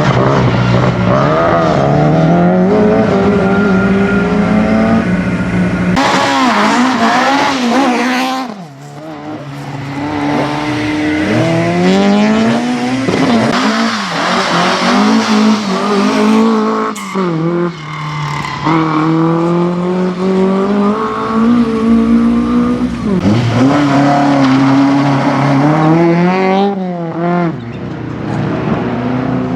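Racing cars driven hard on a tight sprint course, one after another. Each engine revs high, drops sharply when the driver lifts or brakes, and climbs again through the gears. The sound changes abruptly from one car to the next three times.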